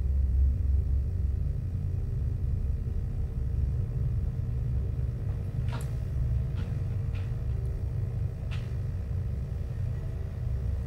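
Steady low rumble with a faint steady hum, and four short clicks between about six and nine seconds in.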